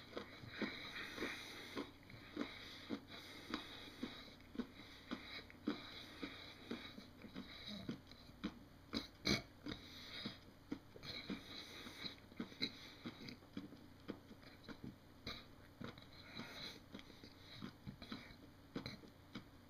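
A person chewing a mouthful of small pellet-shaped sweets close to the microphone, with faint, irregular chewing clicks about one or two a second, one louder about nine seconds in.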